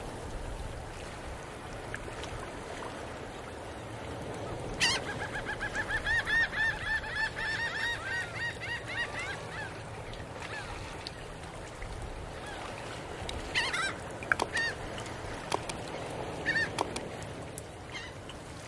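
Birds calling: a quick run of repeated calls about five seconds in, lasting several seconds, then a few scattered calls later, over a steady low background noise.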